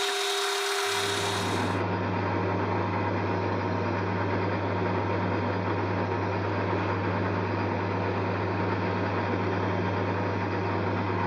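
Metal lathe running steadily with a low, even hum, spinning a CNC spindle shaft as it is heated and drilled to free a stuck plug.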